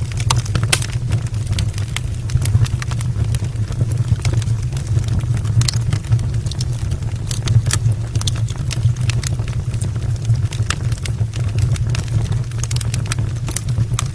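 Wood fire burning in an open fireplace: a steady low rumble of flame with frequent, irregular sharp crackles and pops from the burning logs.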